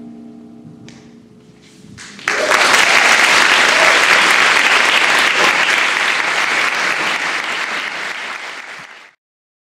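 The last held chord of a string ensemble dies away, and about two seconds in an audience breaks into loud applause. The applause cuts off abruptly near the end.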